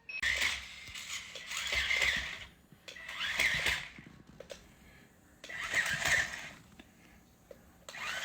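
Remote-control toy dinosaur going through its action, giving about four separate noisy, clicking bursts, each a second or two long, with short pauses between them.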